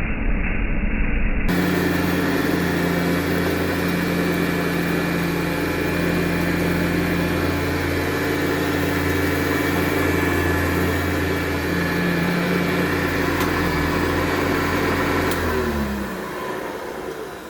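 Early-1970s Hoover Custom Convertible U4007 upright vacuum running steadily with a motor hum, muffled for the first second and a half. About 15 seconds in it is switched off and the motor winds down, its pitch falling as the sound fades.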